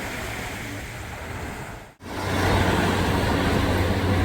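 Ocean surf washing steadily, with wind on the microphone. It cuts out for an instant about two seconds in, then comes back louder with a strong low rumble.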